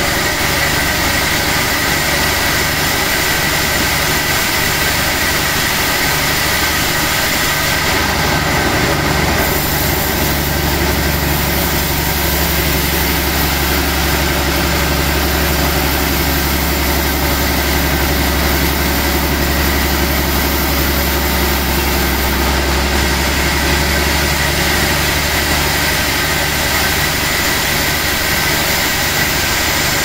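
A large band sawmill running steadily, its blade cutting a log being fed past it on the carriage, over a constant machine drone. The low hum and high hiss grow fuller from about eight seconds in until about twenty-two seconds.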